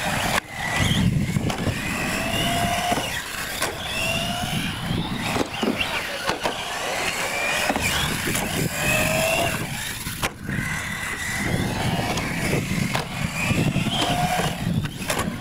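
Radio-controlled UTV trucks racing on loose gravel: their motors give short rising whines as they accelerate, again and again, over a steady low rumble.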